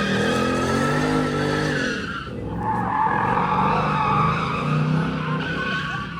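A car drifting: tyres squealing over its running engine in a long slide. The squeal breaks off briefly about two seconds in, then picks up again.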